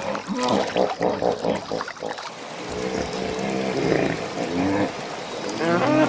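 Water splashing and trickling around wading hippopotamuses. From about three seconds in, hippos call in a series of pitched grunts and honks.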